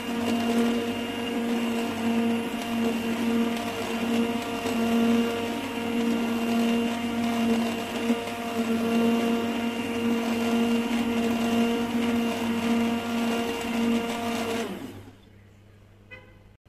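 Hand-held immersion blender running in a pot of boiled carrot soup, its motor humming steadily as it purees the vegetables, then switched off near the end.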